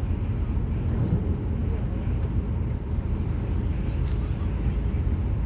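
Steady low rumble of a passenger ferry's engines, heard on board while the boat is under way.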